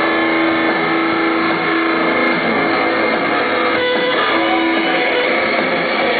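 Live rock music led by electric guitar, playing held notes over the band.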